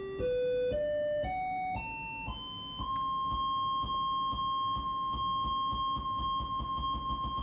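Homemade Arduino mini synth of the Atari Punk kind sounding a buzzy electronic tone. The tone steps up in pitch about twice a second for the first three seconds, then holds one steady high note, with a low crackle underneath.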